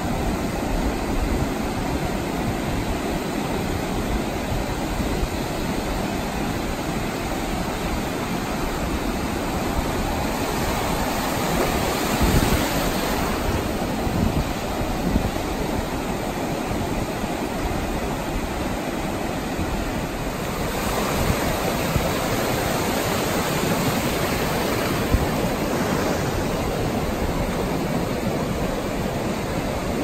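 Sea surf breaking and washing up a shallow sandy beach at the water's edge: a steady rushing wash that swells louder about ten to thirteen seconds in and again around twenty-one seconds in.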